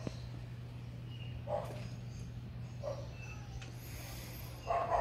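A dog barking: several short barks spaced a second or more apart, with a double bark near the end, over a steady low hum.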